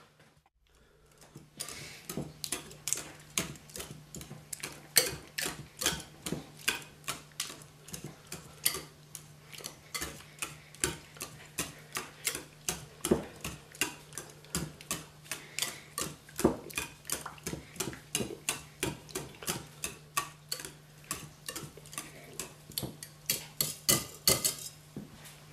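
Wire whisk clinking against a glass bowl as it mashes cooked potato into beaten egg, in a steady rhythm of about three taps a second that stops just before the end.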